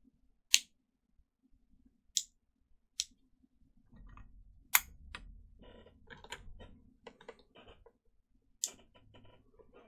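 Inline lamp cord switch being clicked several times, sharp separate clicks, with soft handling rustle in the middle: the newly installed switch being tested to turn the lamp on and off.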